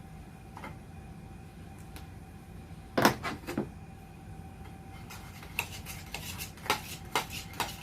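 Dishes and utensils being handled, clinking and knocking: a cluster of knocks about three seconds in, then a run of lighter clinks through the last few seconds.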